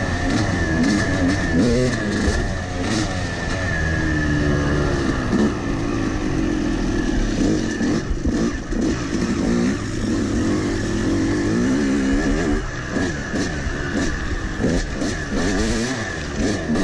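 Yamaha 250 two-stroke dirt bike engine revving up and down as it is ridden over a rough gravel trail, with wind noise on the microphone.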